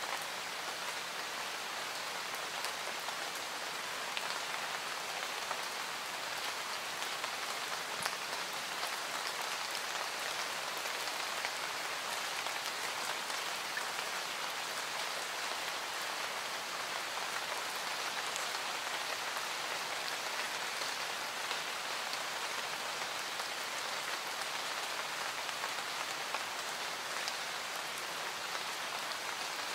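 Steady rain, an even hiss with scattered drop ticks.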